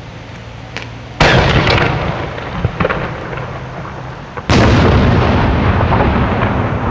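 Two booms from large aerial firework display shells, about three seconds apart, the second the louder. Each is followed by a long rolling echo off the valley sides.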